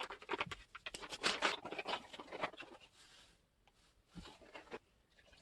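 Scratchy scraping and rustling in quick irregular bursts as a flour, salt and water paste is mixed, pausing about three seconds in before a shorter patch.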